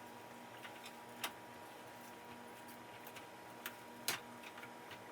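Faint scattered ticks and a few sharp clicks, the louder ones about a second in and near the end, from a frying pan where plant-based ground beef is being broken apart and cooked in a little plant butter. A faint steady hum runs underneath.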